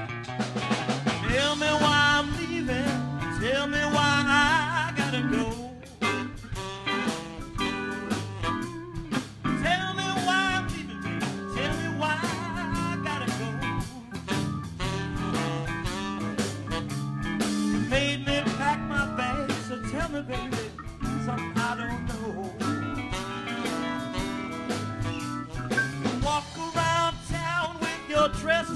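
Live blues band playing: electric guitars and drums, with saxophone and keyboard in the line-up.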